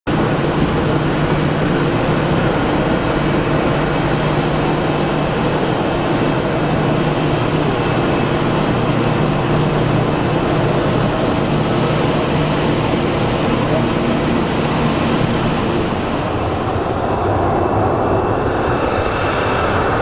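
Jet engines of a Boeing 737-800 on the runway: a steady, loud roar with a low hum under it. Near the end the noise shifts higher.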